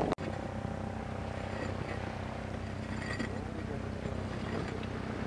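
A steady low motor hum.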